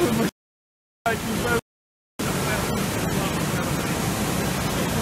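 Heavy rain and running floodwater making a steady rushing hiss. The sound cuts out completely twice in the first two seconds.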